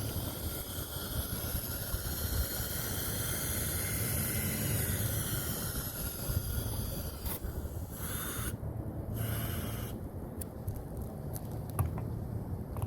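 Power drill spinning a dryer vent cleaning brush inside the vent duct: a steady whine over a low rumble. About eight seconds in the whine drops away, leaving scattered clicks and knocks.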